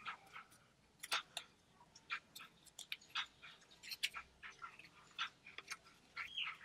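Origami paper being folded and creased by hand: a run of faint, irregular crinkles and crackles as fingers press and shape the folds.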